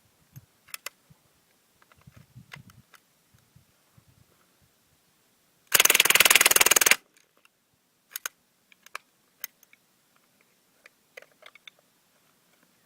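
Suppressed full-auto burst of about a second from an M11/9 with a Fleming .22 LR subcaliber upper and an AAC M4-1000 suppressor, about six seconds in. Scattered faint clicks before and after the burst.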